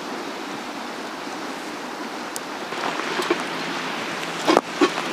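Kindling fire burning in a portable steel fire pit, a steady rushing hiss with a few small crackles. Near the end come several sharp knocks as wood is set onto the fire.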